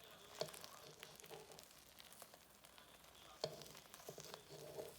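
Food frying faintly in a pan, with two sharp taps, about half a second in and again about three and a half seconds in.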